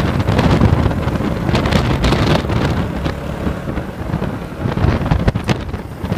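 Wind buffeting the microphone of a phone carried on a moving motorcycle, a loud, steady rushing rumble with motorcycle engine and road noise underneath.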